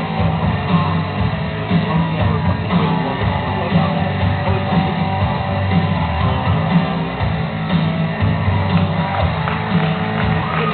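Loud rock music with guitar playing continuously, accompanying a bodybuilder's posing routine.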